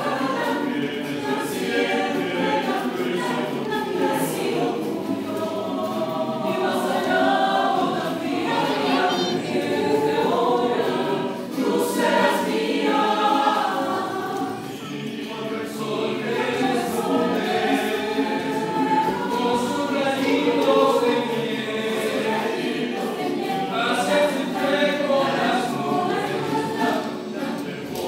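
Mixed choir of women's and men's voices singing a cappella in several-part harmony, steady throughout with a slight softening about halfway through.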